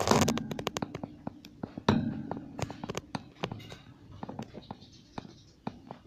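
Budgerigars chattering: an irregular run of sharp clicks and short scratchy calls, louder in bursts at the start and about two seconds in.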